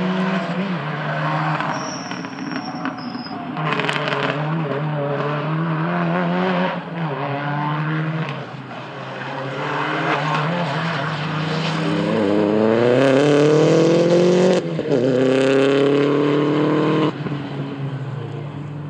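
Rally cars at full stage speed: engines revving hard through the gears as they pass. About two-thirds of the way through, one car accelerates with its revs climbing steeply, lifts briefly for a gear change, climbs again, then drops away sharply near the end.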